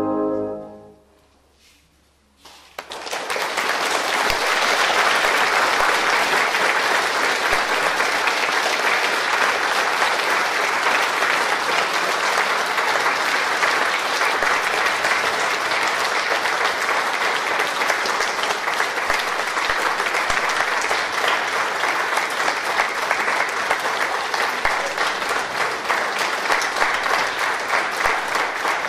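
The wind band's last held chord dies away in the first second, a brief hush follows, then the audience breaks into steady applause about two and a half seconds in.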